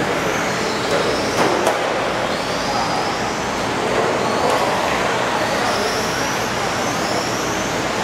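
1/10-scale electric Vintage Trans Am RC sedans racing on a carpet track: their brushless motors whine, rising and falling again and again as the cars accelerate and brake, over a steady rushing noise. Two sharp clicks come about a second and a half in.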